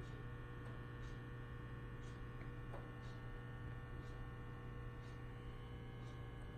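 Quiet room tone: a steady low electrical mains hum, with faint light ticks about once a second.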